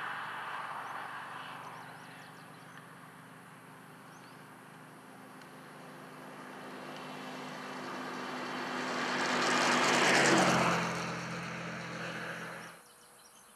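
Highway traffic going by: one vehicle fading away at the start, then another approaching, with a steady engine hum under the tyre noise, loudest as it passes about ten seconds in. The sound cuts off abruptly near the end.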